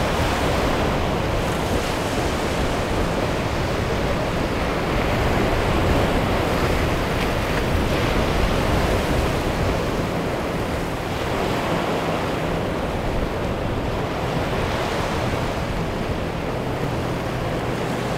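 Ocean waves and surf washing steadily, with wind.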